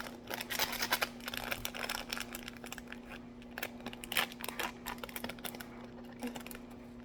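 Plastic sauce packet crinkling and rustling as it is handled, with a quick run of small clicks and scrapes that thins out after about two seconds.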